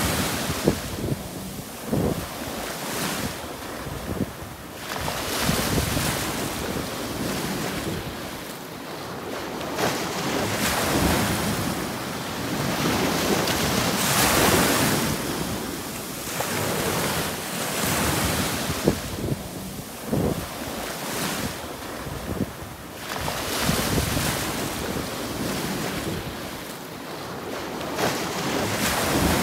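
Small sea waves breaking and washing on a sandy shore, the surf swelling and ebbing every few seconds, with wind buffeting the microphone.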